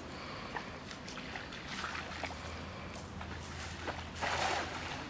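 Bare feet wading and splashing in shallow pond water, then a cast net landing on the water surface with one short splash near the end.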